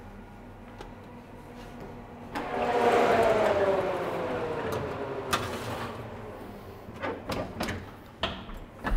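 A commercial combi oven's door is opened, setting off a loud rush of air with a whine that falls steadily in pitch as the fan runs down. A metal tray is slid onto the rack with a few clicks and knocks, and the door is shut near the end.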